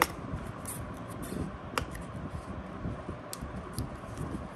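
Gloved fingers handling and picking at the cardboard packaging of a trading-card mega tin: soft rubbing with a few faint clicks.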